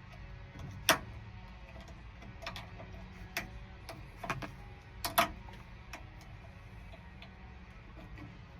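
Irregular sharp metal clicks and taps as a hook tool works at the key cylinder's retaining clip inside a 1964 Chevy Impala door. The loudest clicks come about a second in and again about five seconds in.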